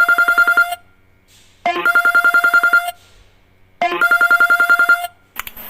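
Phone ringtone in the style of an old telephone bell: three rings of rapid trilling pulses, each a little over a second long, with about a second between them. A steady hiss starts near the end.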